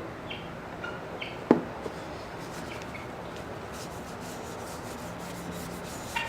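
Walnut being worked by hand with an abrasive tool, a steady rubbing, with one sharp knock about a second and a half in.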